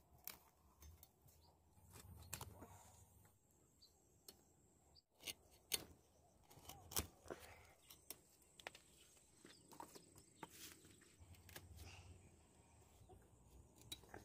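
Near silence, with faint scattered clicks and knocks; a few sharper ticks stand out about five to seven seconds in.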